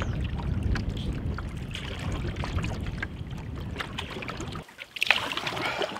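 Strong wind buffeting the microphone as a canoe is paddled into a headwind, with water splashing and paddle strokes knocking. The rumble cuts off abruptly near the end and is followed by brighter, closer splashing.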